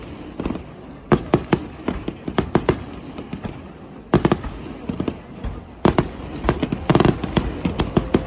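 Fireworks display: aerial shells bursting in clusters of sharp bangs, several quick reports at a time, about a second in, around two seconds, just after four seconds, and a dense run from about six seconds to the end, with a low rumble between the bursts.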